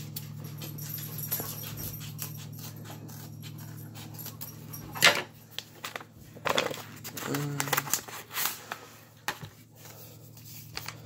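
A paper mailing envelope being handled and torn open by hand, its tear strip pulled off, with rustling and crinkling and one sharp rip about five seconds in. A brief vocal sound comes about halfway through, over a steady low hum.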